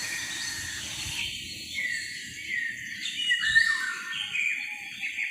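Recorded birdsong played from a sleep-sounds app: birds chirping in short phrases that glide up and down, over a soft, even hiss of background ambience.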